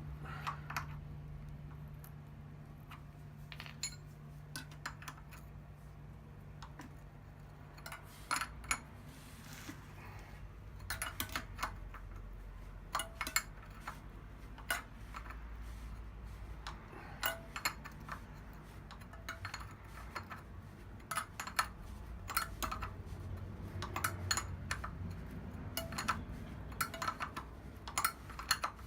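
Scattered sharp metallic clicks and clinks, often a few in quick succession, of a spanner working on the nuts of the wheel's bead clamps as they are done up.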